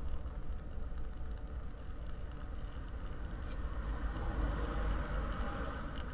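Hot water poured in a steady stream from a kettle into a paper food cup, the splashing pour growing louder in the second half as the cup fills. A steady low rumble runs underneath.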